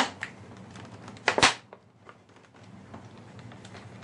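Handling noise as an HO-scale model locomotive is eased out of its plastic packaging: light clicks and rustling, with one short, louder crinkle about a second and a half in.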